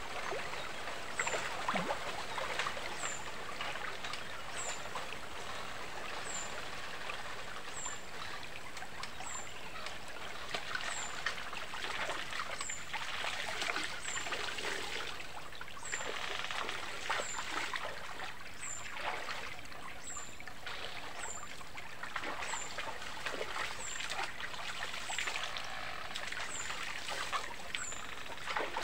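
River water running and trickling, with irregular splashes as someone bathes in it. A short, high, falling chirp repeats about once a second over the water.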